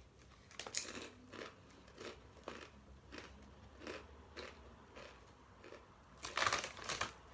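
Close-up chewing of crunchy tortilla chips, a short crunch about twice a second, with a louder crackling burst about six and a half seconds in.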